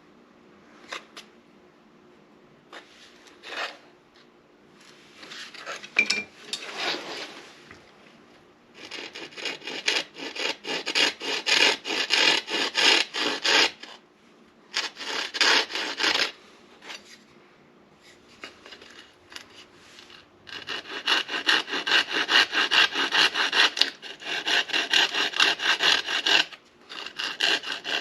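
Seepwillow hand-drill spindle spun between the palms on a sotol hearth board, the wood rubbing and rasping in quick back-and-forth strokes. It comes in runs of a few seconds with short pauses between.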